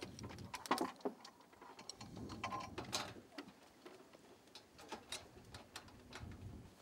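Scattered light clicks and knocks as a solar panel's frame is handled and set down onto its roof mounting rails.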